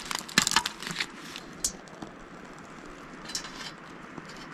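A small folding camp stove with solid fuel tablets and a metal pot being handled on dry leaves: a quick flurry of crackly clicks and rustles in the first second, then a single sharp click, with a few faint clicks later.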